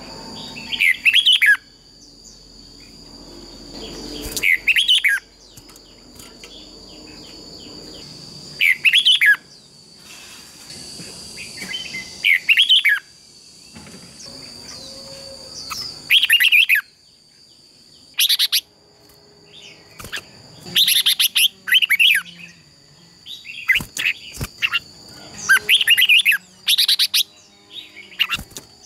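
Red-whiskered bulbuls singing in competitive song: loud, short, chirpy phrases about every three to four seconds, coming thicker and faster in the last third.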